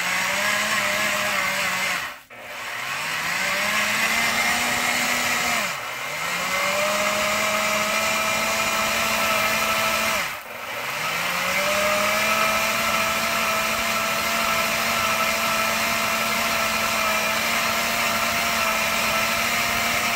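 Electric drill with a twist bit drilling out a stripped aluminium thermostat housing screw. The motor whine runs steady, stops abruptly three times, and each time spins back up with a rising pitch.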